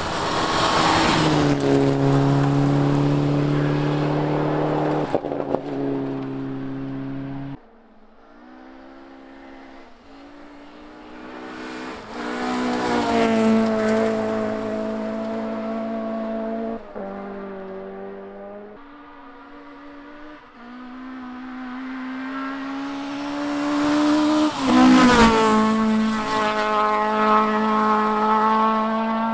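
Rally car engine at high revs on a special stage, its pitch climbing and then dropping in steps at each gear change. It is loudest about two seconds in, around the middle and near the end, and falls away sharply about seven and a half seconds in.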